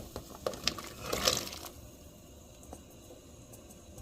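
Cut vegetables being put into a soup pot: a few light knocks, then a short noisy rush of sliding and splashing about a second in.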